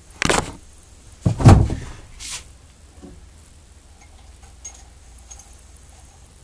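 A few handling knocks as a camera is set down and settled on a surface, the loudest about a second and a half in, followed by faint room noise with a few small ticks.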